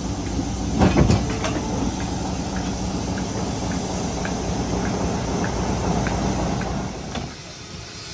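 A train at a heritage railway station: a steady low rumble with a knock about a second in and faint clicks about twice a second, dropping away near the end.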